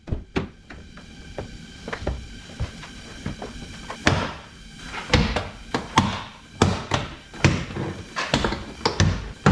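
Irregular series of sharp clicks, pops and knocks from the plastic interior door panel of a BMW E39 being pried and pulled off the door, with its trim clips releasing. The knocks are sparse at first and come louder and more often from about four seconds in.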